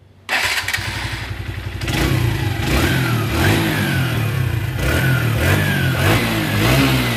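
Freshly rebuilt single-cylinder four-stroke engine of a TVS Metro ES motorcycle, with new piston, rings and clutch plates. It comes in suddenly just after the start, then is revved repeatedly, each throttle blip rising quickly and falling back, about one every three-quarters of a second.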